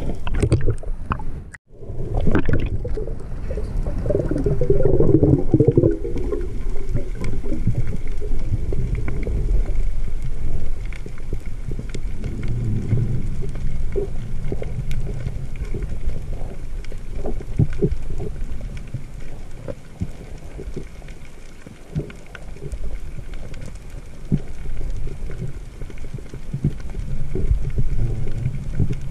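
Muffled underwater sound picked up by a diving camera: low churning of water and bubbling, with many short clicks scattered throughout and a brief cut-out about one and a half seconds in.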